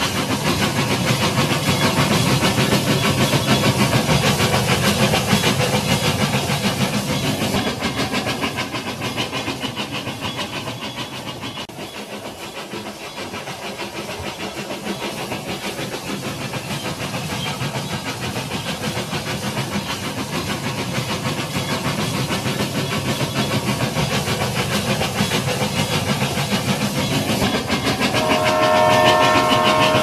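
Toy train set running on its track: a steady, fast rattling hiss, quieter around the middle. About a second and a half before the end comes a whistle of several tones at once, a toy steam locomotive's whistle.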